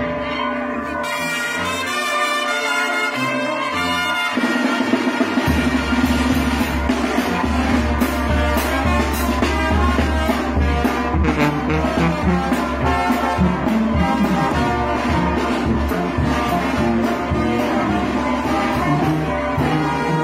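Brass band with a sousaphone playing in the street; about four seconds in the music turns fuller, with a deep sousaphone bass line and a steady beat under the horns.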